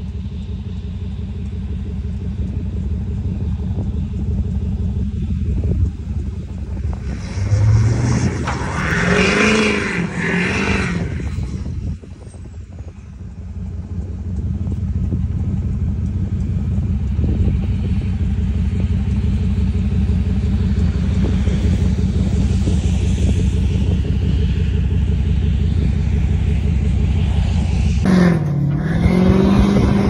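Duramax diesel pickup engine running with a steady low rumble. Its revs rise and waver for a few seconds about a quarter of the way in, and swing up again briefly near the end.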